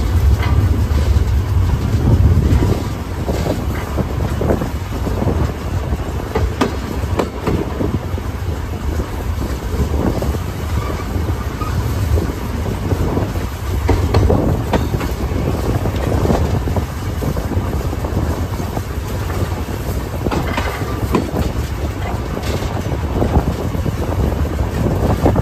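Wind buffeting the microphone over the steady low rumble of a moving passenger train, with irregular clicks and knocks of the wheels running over the track.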